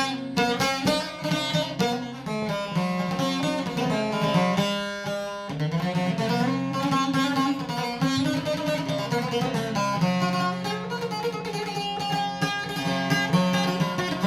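Long-necked lute played solo: a quick plucked melody over steadily ringing low drone notes, with a brief lull about five seconds in.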